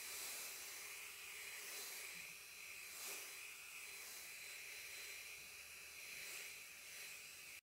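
Small handheld hair dryer blowing a steady hiss of air with a thin high whine, heat-setting fresh airbrush paint on a wooden fishing lure. Its rush swells and fades gently every half second or so as it is moved over the bait.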